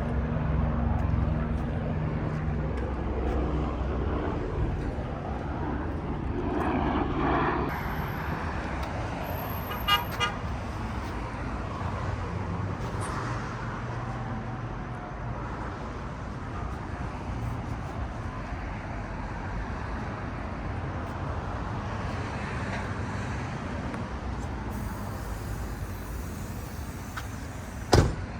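Street traffic: cars passing with a steady engine and tyre rumble. A short car horn toots twice about ten seconds in, and there is a sharp click near the end.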